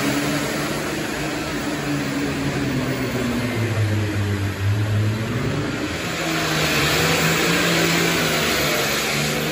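Pulling tractor's engine running at full throttle under heavy load as it drags a weight-transfer sled. Its pitch sags between about four and six seconds in, then climbs again.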